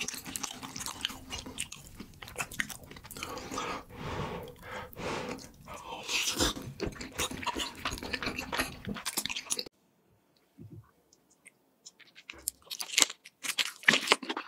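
Close-miked eating sounds: chewing, biting and crunching of fried food and cheese, dense and continuous for about ten seconds. After a sudden break, a few sharp crunchy bites into a cheese-covered burger near the end.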